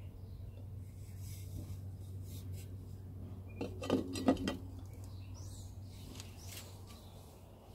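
A glass pot lid with a steel knob being set back onto a stainless steel cooking pot: a quick run of clinks and rattles with a short ringing, lasting about a second around the middle. A steady low hum runs underneath.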